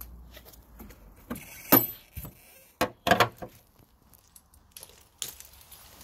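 A few sharp metallic clicks and clinks, like keys or small metal parts being handled, with the loudest a little under two seconds in.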